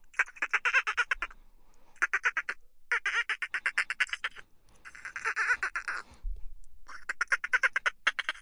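Dolphin chattering: rapid trains of clicking pulses, about a dozen a second, in five spells of roughly a second each with short gaps between them.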